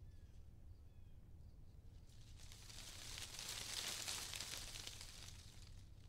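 Quiet outdoor nature ambience: a rustling gust of wind swells up and dies away over about three seconds in the middle, over a steady low rumble. A few faint short bird chirps come near the start.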